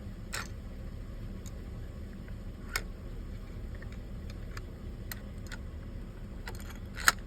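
Scattered sharp clicks and taps of a .308 firearm being handled, with a louder double click near the end, over a steady low rumble. No shot goes off: the gun is on safety.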